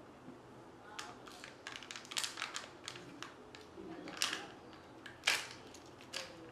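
Plastic and foil handling from a Kinder Joy egg: crinkling and light clicks as its small plastic toy capsule is worked open, with one sharp click a little past five seconds.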